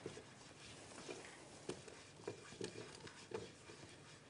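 Faint scattered taps and light scrapes of a utensil against a frying pan as oil is spread over it to grease it.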